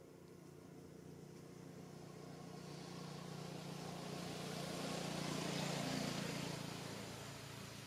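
A motor vehicle passing by: engine hum and road noise grow louder, peak about six seconds in, then fade away.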